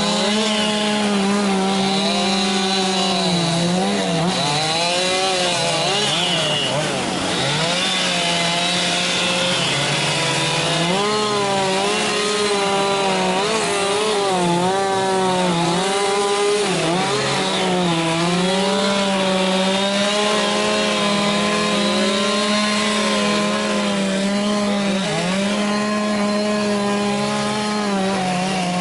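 Chainsaw running flat out while carving wood, its pitch dipping and recovering over and over as the chain bites into the wood and is eased off.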